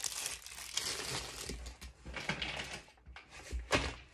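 Packaging crinkling and rustling as items are handled and pulled out of a box, with a few sharp knocks, the loudest near the end.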